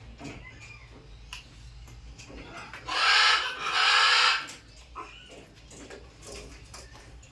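Macaw giving two loud, harsh screeches in quick succession, each lasting under a second, about three seconds in.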